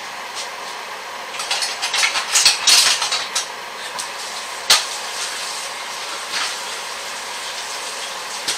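Steady hiss from a large steel stockpot of hot water on the heat. A flurry of clattering and scraping comes from about a second and a half to three and a half seconds in, and a single sharp knock near five seconds in.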